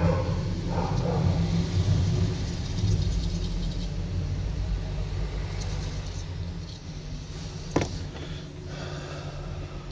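A steady low rumble that slowly fades, with one sharp click about eight seconds in.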